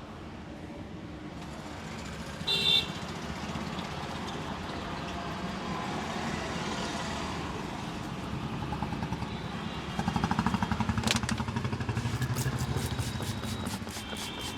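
Street traffic noise with motor vehicles, among them a motorcycle, passing. A short loud tone sounds about two and a half seconds in, and a fast, even tapping runs through the last few seconds.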